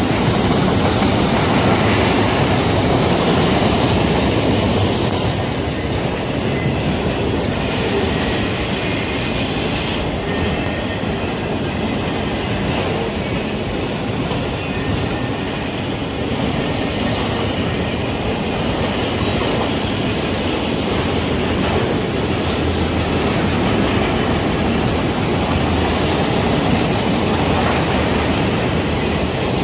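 CSX freight train of enclosed autorack cars rolling past: steady noise of steel wheels running on the rails as car after car goes by.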